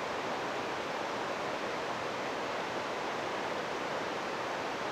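Steady rushing of Sutherland Falls, a tall three-tiered waterfall, as an even noise with no breaks.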